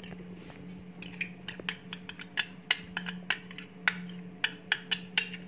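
A metal spoon clinking against the rim of a blender jar again and again, about three times a second, as mayonnaise is scooped in and knocked off the spoon. A steady low hum runs underneath.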